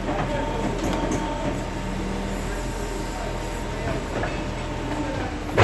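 SMFA 100 automatic sawmill machinery running steadily during log loading: a low hum with a thin steady whine. The whine stops shortly before a sharp knock near the end.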